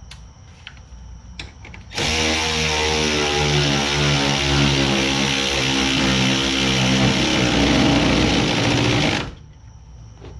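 A handheld power tool runs continuously for about seven seconds, starting about two seconds in and cutting off abruptly near the end, its pitch shifting in small steps. A few light knocks come before it.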